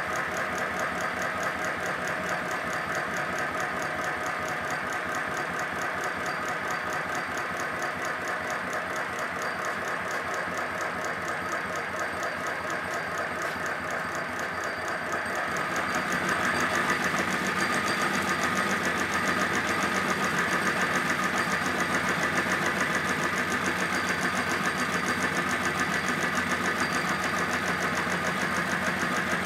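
A 5-inch gauge live-steam model of the 'Lion' locomotive running on the bench with its wheels turning: a rapid, even mechanical beat from its steam cylinders and motion, growing louder about halfway through. It is running on the steam left in its boiler, with the gas burner turned off and no heat under the firebox.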